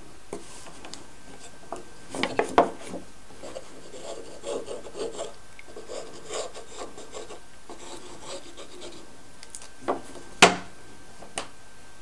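Thin plywood model-boat keel pieces handled and pressed together on paper: wood rubbing and sliding against wood, with scattered light knocks, the sharpest about two and a half seconds in and again near the ten-second mark.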